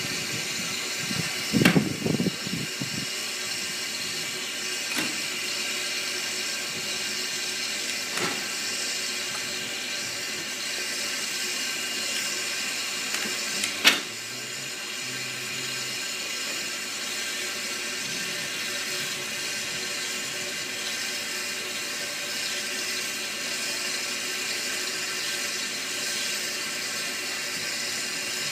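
SECR P class 0-6-0 tank engine standing with a steady hiss of escaping steam. There are a few low thuds about two seconds in, fainter clicks, and one sharp knock about 14 seconds in.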